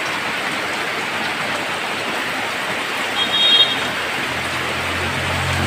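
Heavy rain pouring steadily. A brief high-pitched squeak a little after three seconds in. A low engine hum builds near the end.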